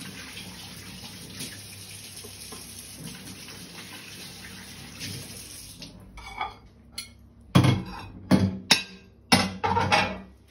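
Kitchen tap running steadily onto hands being washed in a stainless steel sink. The water stops about six seconds in, and several loud knocks and clatters follow.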